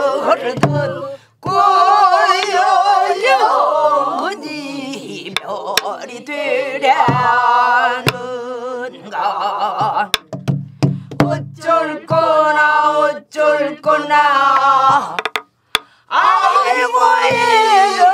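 Korean traditional singing: sustained notes with a wide, wavering vibrato, broken by a few short pauses, with a few sharp knocks.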